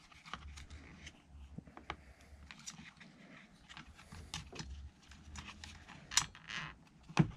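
Small clicks and scrapes of a flathead screwdriver prying the rubber fuel-line grommet out of a Stihl FS 55 R string trimmer's plastic fuel tank, with a couple of sharper clicks near the end.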